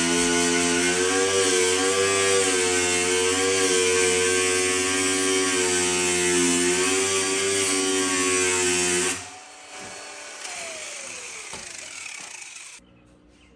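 Power tool motor running under load, its pitch wavering, then released about nine seconds in, the whine falling as it spins down.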